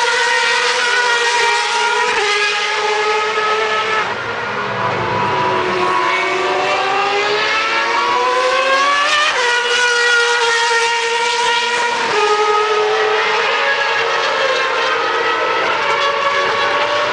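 Superleague Formula race cars' V12 engines at racing speed: engines shift down in steps, then one climbs steadily through the revs for several seconds before dropping sharply at an upshift about nine seconds in, with another drop a few seconds later.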